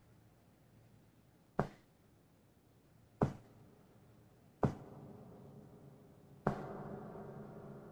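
Slow, sharp drips of blood falling from a cape into a pool on the floor, five of them about 1.7 seconds apart, each ringing briefly. Under the last two, a sustained musical chord swells in.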